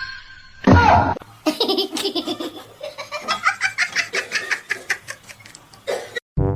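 A person laughing hard in a rapid run of repeated ha-ha pulses, after a short loud sound about a second in.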